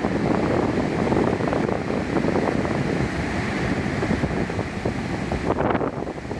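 Strong typhoon wind buffeting the microphone, over the continuous rush of heavy surf.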